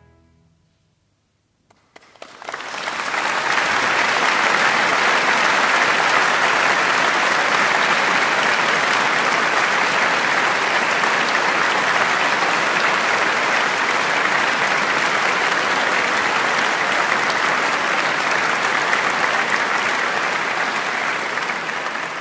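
Concert-hall audience applauding. After a brief silence the applause breaks out about two seconds in and continues steadily, beginning to fade right at the end.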